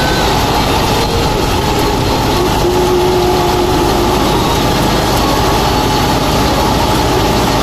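Tractor-driven stationary thresher running steadily while threshing canola stalks, its drum turned through a shaft from the tractor, with the tractor engine running underneath: a loud, even mechanical din.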